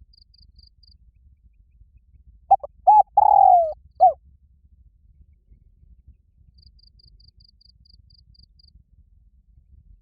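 Spotted dove cooing once: a four-note phrase of two short coos, a long falling coo and a short final coo, loud and resonant. A faint, rapid insect trill ticks before and after it.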